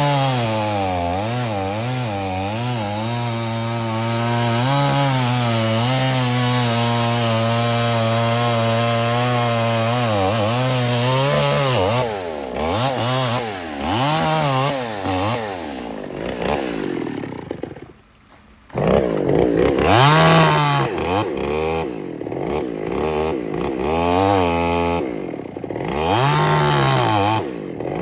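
Two-stroke chainsaw running at high revs while cutting through a tree, its engine note wavering up and down under load. Partway through, the sound drops off sharply for about a second, then revs back up.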